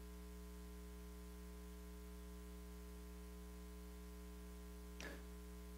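Quiet, steady electrical mains hum in the sound system, with one short faint sound about five seconds in.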